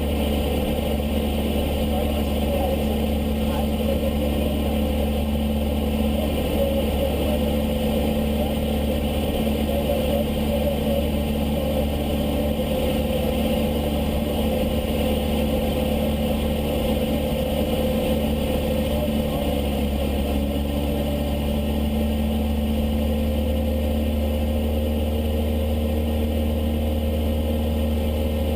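Cessna 152's four-cylinder Lycoming O-235 engine and propeller droning steadily in flight, holding one pitch.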